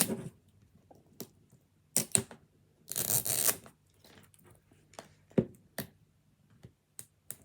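Plastic wrapping of a Miniverse capsule being torn open along its tear-strip zipper: short rustling tears, the longest lasting under a second about three seconds in, with a few light plastic clicks in between.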